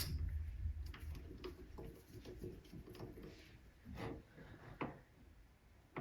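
Faint clicks and light knocks of small metal tool parts being handled, with a low hum that fades away in the first second or two.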